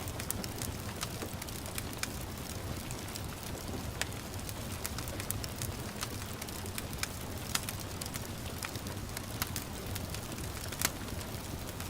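Wood fire crackling, with frequent sharp pops, over a steady hiss of gentle rain and a low rumble. One louder pop comes near the end.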